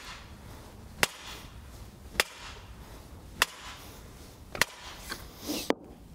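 Sledgehammer striking a timber offcut that sits in a metpost's socket, driving the metal fence spike into the ground with five sharp blows about a second apart.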